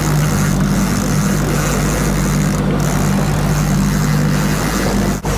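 A boat motor running steadily at trolling speed, an even hum over wind and water noise, with a momentary dropout about five seconds in.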